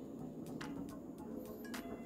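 Background music, with two light clicks from handling a hand-crank coffee grinder, one about half a second in and one near the end.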